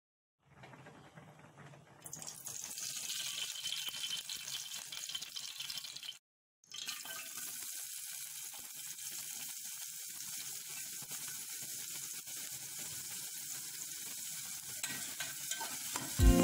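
Oil sizzling in a metal pot, then chopped onions frying in it with a steady sizzle after a brief break about six seconds in. Loud music starts right at the end.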